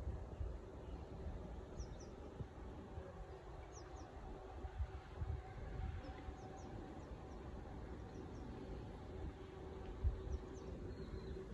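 Faint outdoor ambience: a steady low hum, with scattered short high bird chirps and a light rumble of wind on the microphone.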